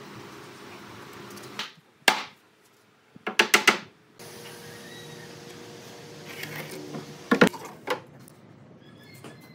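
Metal clicks and clanks of steel pipe clamps being slid and tightened against pine boards. There is a sharp click about two seconds in, a quick run of clicks around three and a half seconds, and a loud knock a little past seven seconds.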